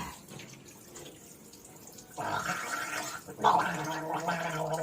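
A person gargling water in the throat: after a quiet start, a steady voiced gurgle begins about two seconds in, with a brief break in the middle, and keeps going.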